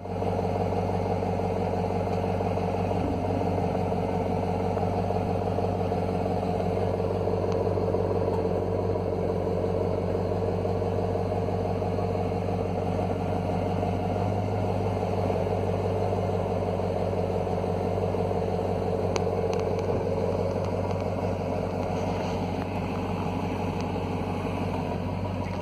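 2017 Dodge Durango SRT's 6.4-litre (392) HEMI V8 idling steadily, heard right at the exhaust tip, an even, deep burble with no revs.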